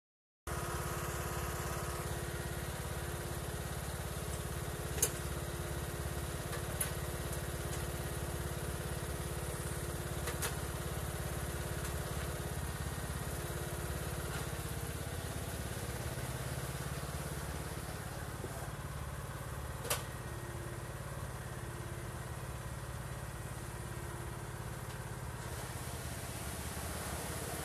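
Riding lawn tractor engine (a Troy-Bilt) running steadily, its note changing slightly about halfway through, with a few sharp clicks over it.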